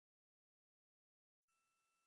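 Near silence. About one and a half seconds in, a very faint hiss with a faint steady tone begins.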